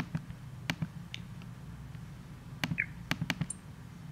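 A series of sharp, irregular clicks from operating a computer, about eight in all, bunched together near three seconds in, with a couple of faint short chirps among them.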